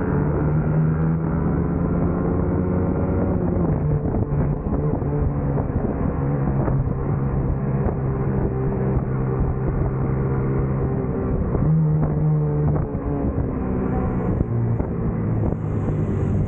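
Racing motorcycle's engine running under load through a lap, heard from the bike's own tail. The engine note holds, then drops in pitch about three and a half seconds in and climbs again near twelve seconds, following throttle and gear changes.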